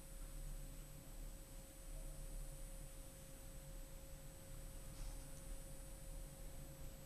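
Quiet room tone with a faint steady whine and a low hum, an electrical tone in the recording, with no distinct handling sounds.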